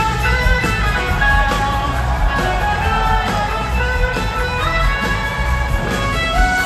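A live blues-rock band playing an instrumental passage: electric guitar melody lines, some gliding in pitch, over bass and a steady drum groove.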